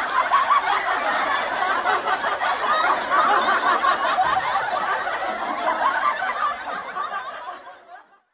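Many people laughing at once, a dense overlapping crowd laugh that fades out near the end.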